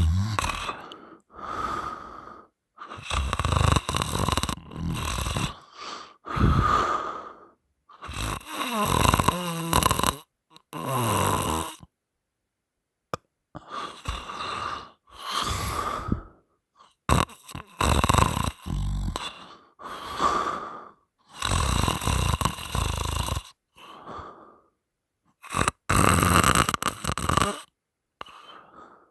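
A person snoring loudly through an open mouth, one rattling snore on each breath every two seconds or so, with a brief silent pause about twelve seconds in.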